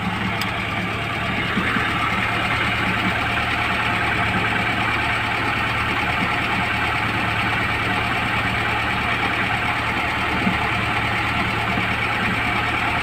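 VAZ-2107 drivetrain running in third gear: a steady engine-and-drivetrain drone with a knocking from the rear axle differential, getting slightly louder about a second and a half in. The owner traces the knock to the differential, having found no play in the half-shafts.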